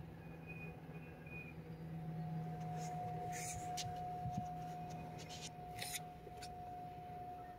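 Short rustling and clicking handling noises, a few seconds in, over a faint steady low hum and a steady high tone.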